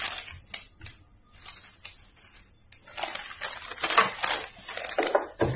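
Fabric rustling and brushing in irregular handling noises as a sewn sample is handled and laid flat on a sewing machine bed. It goes quieter for a while about a second in.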